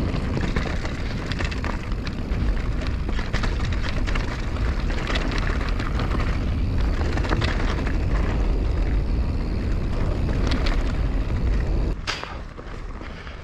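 Wind noise buffeting an action camera's microphone as an enduro mountain bike rides along a narrow dirt ridge trail, with scattered clicks and rattles from the tyres and bike over the rough ground. The wind noise drops off abruptly about twelve seconds in.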